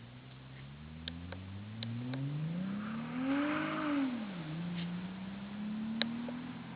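Mercedes-Benz C230 V6 with a resonator-deleted custom exhaust accelerating, its engine note climbing steadily, then falling sharply about four seconds in and climbing slowly again. A few sharp clicks are heard.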